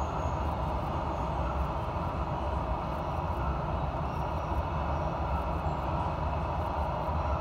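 Container wagons of a passing freight train rolling through at speed: a steady rumble of wheels on rails, muffled through the window glass of a double-deck passenger car.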